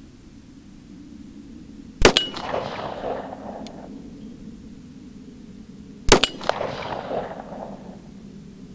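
Two shots from a .45 ACP 1911 pistol, about four seconds apart, each with a sharp crack and a short echoing tail. The pistol is firing 200-grain lead semi-wadcutter handloads over CFE Pistol powder, which run fast.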